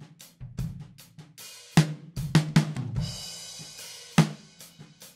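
Drum kit played back through a PreSonus PX-1 large-diaphragm condenser used as a talkback room mic, crushed by a transient shaper that cuts the punch and lifts the sustain, with EQ boosting the lows and cutting the top hard. Kick, snare and hi-hat hits, with a cymbal wash about three seconds in.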